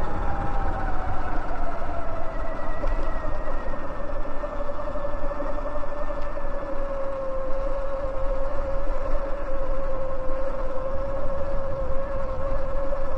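Electric dirt bike motor whining while riding, its pitch dropping over the first few seconds and then holding steady, over a low wind rumble on the microphone.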